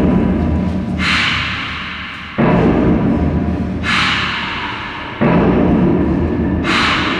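Electronic dance score built from blocks of noise that switch abruptly, about every second and a half, between a high hiss and a low rumble. Each block starts suddenly and fades away before the next one hits.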